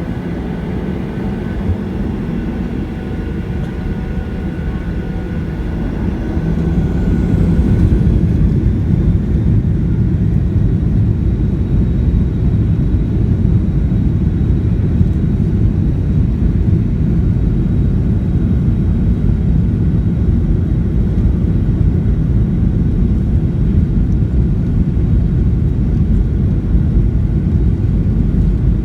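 Airplane engines during takeoff: steady engine tones with a rising whine as they spool up, growing louder about six to eight seconds in, then a loud, even rumble at takeoff power.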